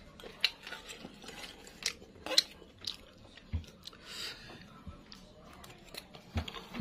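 Metal spoons clinking against a stainless steel bowl while eating, with several scattered sharp clinks, the loudest about two and a half seconds in, and chewing in between.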